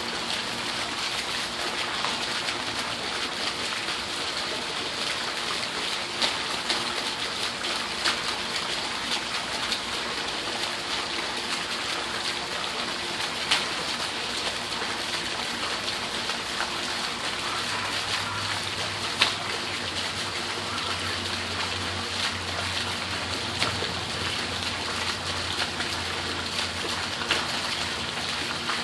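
Steady rush of splashing water, with a few sharp ticks scattered through it. A low steady hum joins about two-thirds of the way in.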